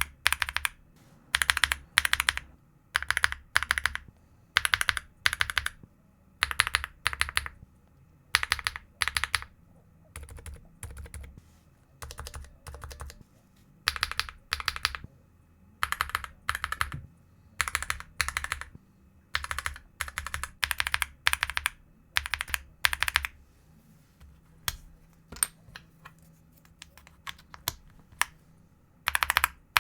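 Mechanical keyboard switches being typed on in short bursts of rapid keystroke clicks, each burst about a second long with brief pauses between. Some stretches of bursts are noticeably quieter than others.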